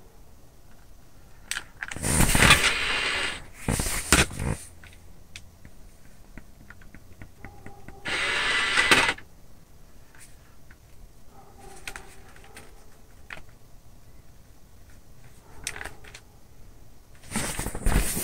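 Handling noise around a handheld TV remote: three loud rustling bursts of about a second each, with faint scattered clicks between them as the remote's buttons are pressed and the player does not respond.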